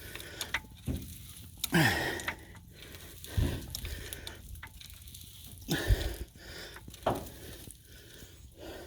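Harbor Freight Badland 3-ton off-road floor jack being pumped under a heavy pickup, with irregular clunks, clicks and short falling creaks as the load rises.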